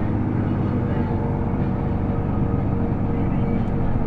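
The engine of a trail-grooming vehicle running steadily at an even speed, a constant drone with no change in pitch.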